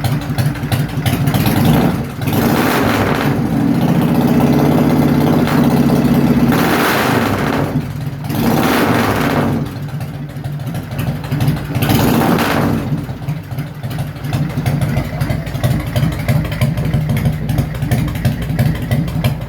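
Motorcycle engine through drag pipes, revved several times from idle: one rev held for a few seconds, then three shorter throttle blips, then settling back to a steady pulsing idle for the last third.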